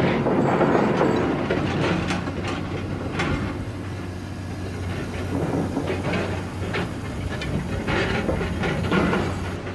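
Small electric motor and gear drive of a motorised cardboard model tractor running, a steady low hum with irregular clicking and clattering from the moving parts.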